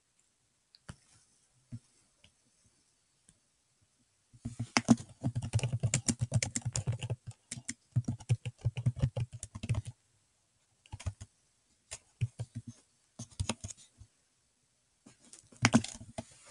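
Computer keyboard typing: a few stray clicks, then a fast run of keystrokes from about four seconds in until about ten seconds, followed by several short bursts of keys.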